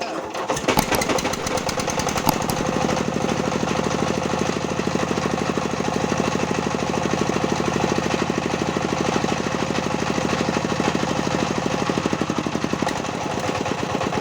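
A 20 hp Chinese single-cylinder diesel engine, freshly rebuilt with a new cylinder liner and piston, picks up about a second in and then runs steadily with a rapid, even knock.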